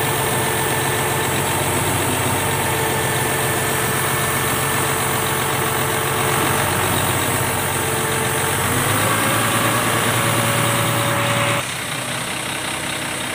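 Isuzu boom truck's diesel engine idling steadily, heard from beneath the truck. Its pitch steps up slightly about nine seconds in, and the sound drops in level suddenly near the end.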